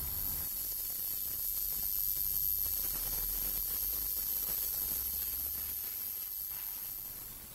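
Household ultrasonic cleaner running with a print head in its water bath: a steady high-pitched whine over a hiss of cavitating water as dried ink is shaken loose from the nozzles. The whine cuts off at the very end.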